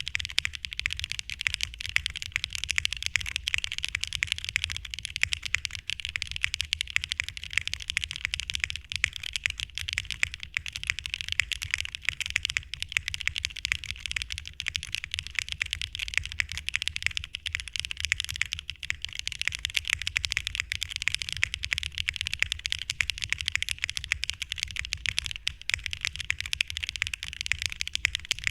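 Matrix Corsa keyboard being typed on fast and without a break: a dense, even stream of key clicks.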